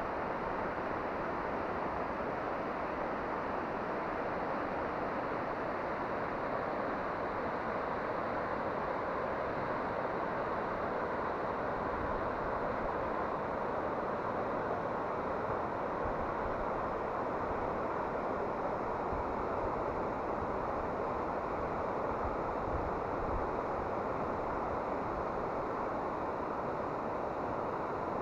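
The Toyohira River's rapids rushing, a steady, unbroken noise of fast-flowing water.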